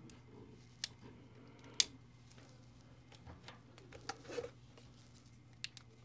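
A few small, sharp plastic clicks and taps as a keystone jack is handled in a pass-through patch panel, the loudest about two seconds in, over a faint low steady hum.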